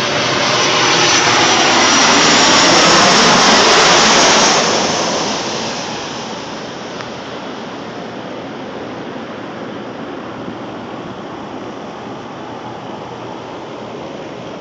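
Jet airliner on landing approach passing low overhead: a loud jet-engine roar with a high whine on top swells to a peak a few seconds in. It then fades into a steady, quieter rush.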